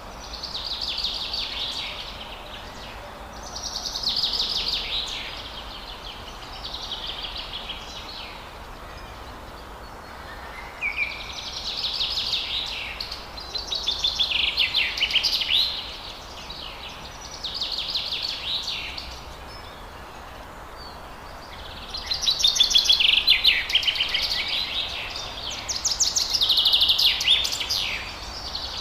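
Forest birds singing: short phrases of rapid, buzzy notes repeated every two to three seconds, loudest in the last third, over a steady background hiss.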